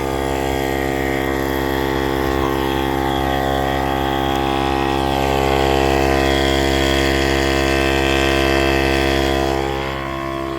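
Electric air pump running steadily, inflating an inflatable boat; its hum swells a little in the second half and eases off near the end.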